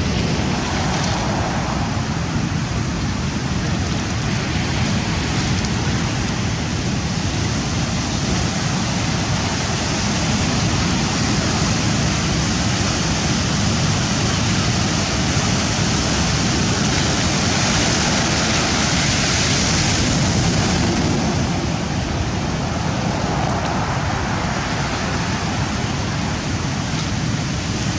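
Steady rush of rough-sea surf with wind, swelling louder for a few seconds past the middle.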